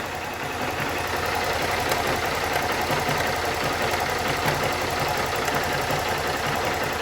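Honda CG 160 Start single-cylinder engine idling steadily, with a fast repeated tapping, 'tec, tec', running through it that is not part of normal running.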